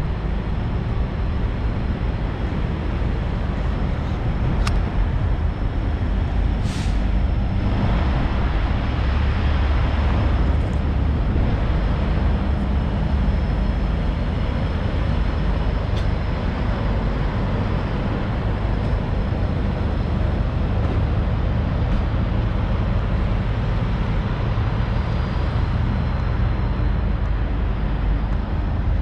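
Semi-truck diesel engine running at low speed with a steady low rumble. About seven seconds in there is a short, sharp hiss of air-brake air.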